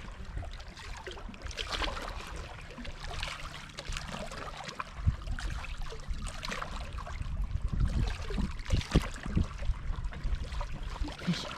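Lake water lapping and splashing at a rocky shoreline, with a low rumble and scattered small knocks throughout.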